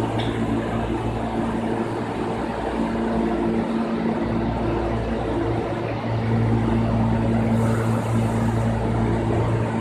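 R160 subway train with Siemens equipment standing in the station, giving off a steady electrical hum made of several low, even tones. A short hiss comes in about eight seconds in.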